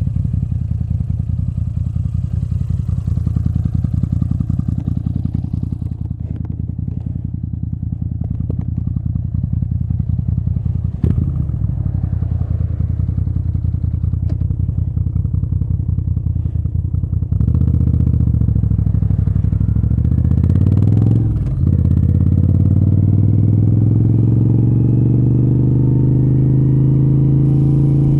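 Moto Guzzi V7 III Rough's air-cooled 90-degree V-twin through Mistral short exhaust pipes, running at low, steady revs. About two-thirds of the way through it gets louder and rises in pitch as the bike accelerates, with a brief sharp dip in revs before it climbs again.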